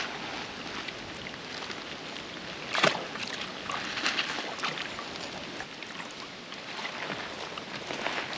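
Water splashing and lapping, with one sharper splash about three seconds in.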